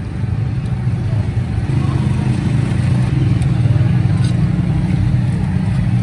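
An engine running steadily with a low, even hum that swells slightly about two seconds in.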